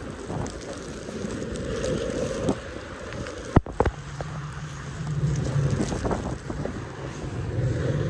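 Snowstorm wind gusting and buffeting the microphone, with a sharp click about three and a half seconds in. A low steady hum comes in soon after.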